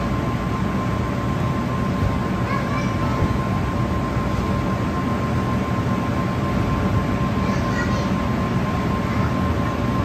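Steady low rumbling hum with a thin constant whine on top, typical of the fans and air handling of a large indoor play space. Faint children's voices come briefly about two seconds in and again near the end.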